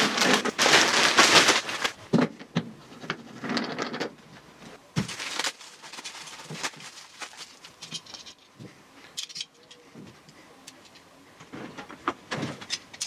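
Plastic wrapping crinkling loudly for the first couple of seconds as the MIG welder's bagged torch and cable bundle is unpacked, with more crinkling a little later. After that come scattered light clicks and knocks of the cables and their metal ring lugs being handled.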